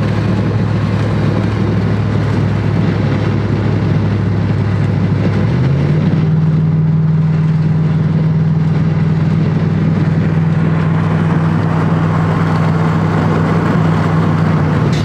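Pickup truck driving on the highway, heard from inside the cab: a steady engine drone over tyre and road noise. About six seconds in, the engine note steps up in pitch and holds there.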